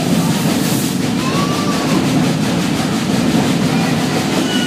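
Steam train running at speed, heard from just behind the locomotive's tender: a steady rumble of the wheels and cars on the track.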